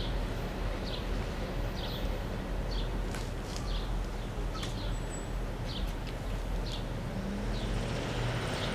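A steady low rumble with a small bird chirping over it, short high notes repeated about once or twice a second, and a couple of faint clicks.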